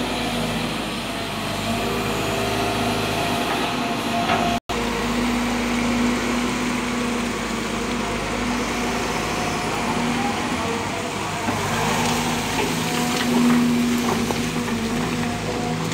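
Sumitomo SH210 hydraulic excavator's diesel engine running steadily under load as the machine works and dumps soil. The sound breaks off for an instant about a third of the way in.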